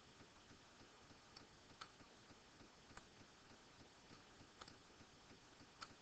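Near silence, with a few faint, sparse computer mouse clicks as the pointer clicks OK and drags a frame on screen.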